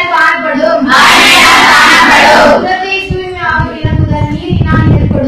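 A group of schoolgirls singing together, loud and rough-edged, easing off a little over halfway through, with a low rumble underneath near the end.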